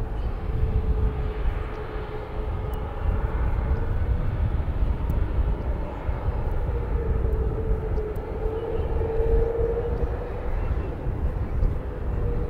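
Jet airliner engines running: a low, steady rumble with a droning tone that wavers slightly in pitch.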